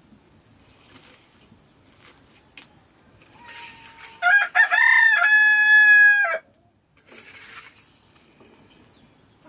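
A rooster crows once near the middle: a few clipped notes lead into a long held note of about two seconds that drops away at the end.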